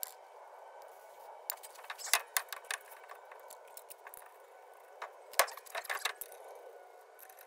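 A Porsche 914's wheel rocked by hand on its hub, giving two bursts of sharp clicks and knocks, the first about a second and a half in and the second about five seconds in. This is the play of a wheel bearing with a little wiggle in it.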